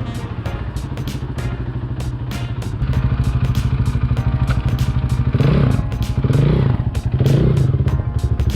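KTM 500 EXC single-cylinder four-stroke dirt bike engine running, with its new fuel pump fitted, getting louder about three seconds in and then revved in three short blips. It now starts and runs after the no-start fault.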